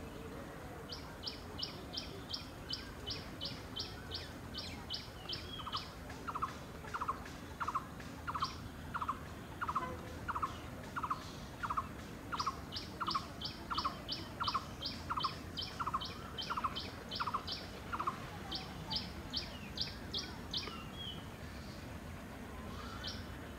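Birds calling in the trees. One repeats a short high note about three times a second in several runs. Another repeats a lower note about twice a second through the middle, over a faint low rumble.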